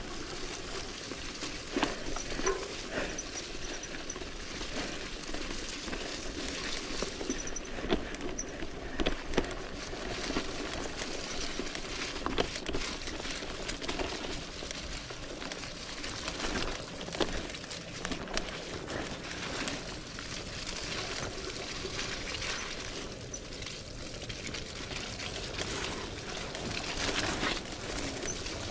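Electric mountain bike descending a muddy forest trail: continuous tyre and riding noise with frequent knocks and rattles from the bike over bumps.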